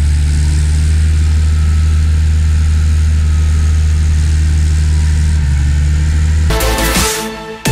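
Case IH CVX 195 tractor's diesel engine running at a steady, even low drone as the tractor drives past; the drone shifts slightly about five seconds in. Electronic music cuts in near the end.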